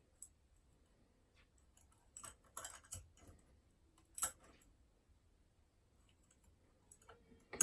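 Faint, irregular metallic clicks and ticks of a lever pick and tension tool inside a Union Chubb 3G110 five-lever mortice lock, as the levers are lifted one at a time under tension to feel for a change in bind.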